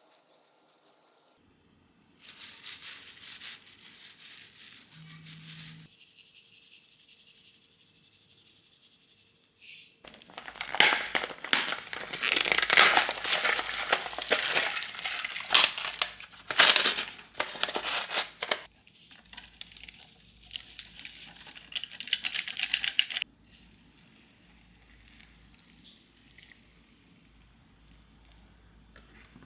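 Crinkling and crumpling handling sounds in several stretches that start and stop abruptly, loudest and densest from about ten to twenty-three seconds in, with quieter rustling around them.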